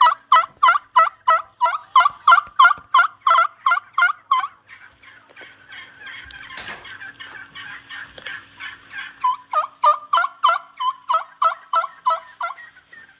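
Turkey calling in a fast, even run of sharp repeated notes, about four to five a second, in two bouts with a quieter stretch between them.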